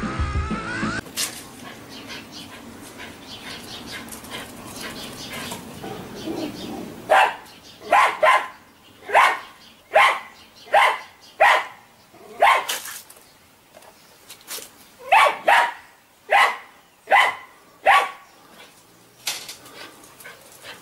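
A dog barking: about fifteen short, sharp barks, some in quick pairs, with a short break partway through. Music cuts off about a second in, and the barking starts after a few quiet seconds.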